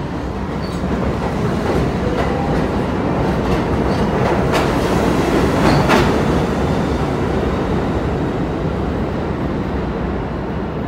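Budd R32 subway train pulling out of the station, its wheels clacking over the rail joints. The rumble builds to a peak about halfway through, then slowly fades as the train runs off down the track.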